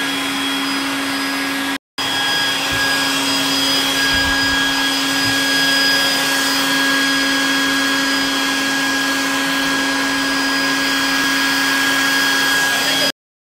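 Custom bee vacuum running steadily, a constant motor hum with a hiss of suction, used to suck live bees out of the wall cavity into a hive box. It drops out briefly about two seconds in and cuts off suddenly near the end.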